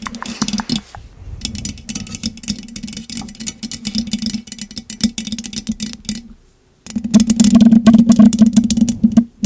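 Loud stomach growling close to the microphone: a steady low rumble with dense crackling gurgles, cutting out briefly about six seconds in.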